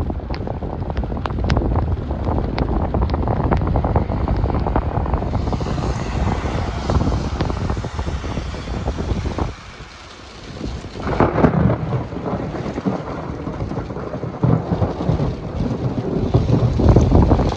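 Heavy thunderstorm rain and wind rumbling on the microphone, with rolls of thunder swelling louder about eleven seconds in and again near the end. Raindrops tick against the microphone in the first few seconds.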